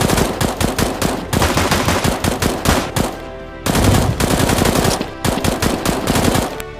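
Sound effect of automatic gunfire: rapid machine-gun fire in several long bursts with brief breaks, dubbed over a toy blaster being fired.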